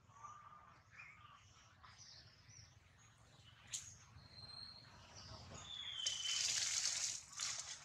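Faint outdoor ambience with a few short, thin bird chirps and whistles, one falling in pitch just before the end. Near the end there is a louder rustling, scratchy noise, with a single click in the middle.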